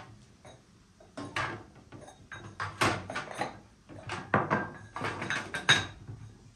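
Small terracotta clay bowls clinking and knocking against each other and the tray as they are unstacked and set down one by one. The knocks come in an irregular run of sharp strikes.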